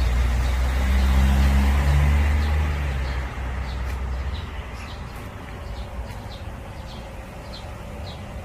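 Low rumble of a nearby motor vehicle's engine, loudest in the first few seconds and dropping back about four seconds in. From about three and a half seconds on, a small bird chirps repeatedly with short, high chirps about twice a second.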